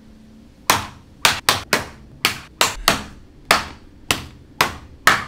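Large kitchen knife chopping into the top of a young husked coconut on a cutting board: about a dozen sharp whacks in quick, uneven succession, starting about a second in.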